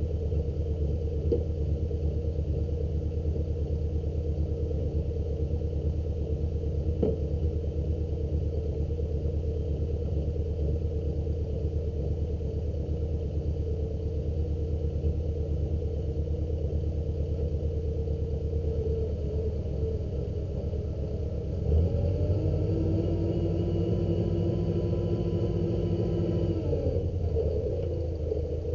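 Service truck's engine running at a steady idle. About three-quarters of the way through it speeds up and holds a higher whine for about five seconds while the truck-mounted crane hoists a skidder rear axle, then drops back to idle.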